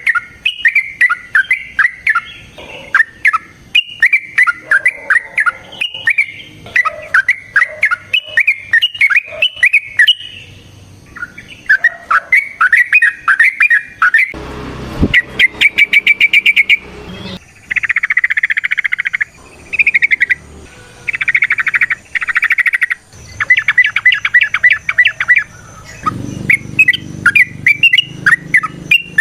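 Yellow-vented bulbul (trucukan) singing loud, bubbly warbled phrases. Partway through it switches to a fast run of rapid repeated notes and buzzy chattering, then goes back to bubbly phrases near the end.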